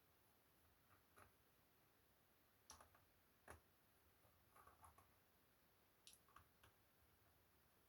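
Near silence broken by a handful of faint, irregular clicks and light taps, the sound of small hard objects being handled.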